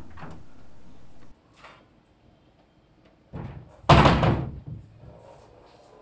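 Carved wooden door being swung shut, closing with a single loud bang about four seconds in.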